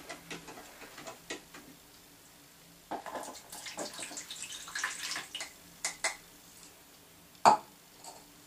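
A spoon stirring borax into a cup of water until it dissolves, clinking and scraping against the cup in scattered taps, with one sharper clink near the end.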